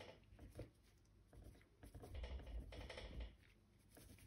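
Faint, scratchy strokes of a bristle brush flicking oil paint upward across a canvas, with a busier run of strokes about two to three seconds in.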